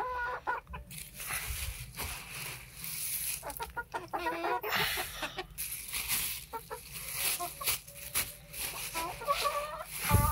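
Hens clucking repeatedly around grain being scattered for them, with the crinkly rustle of a plastic feed bag as grain is scooped out of it.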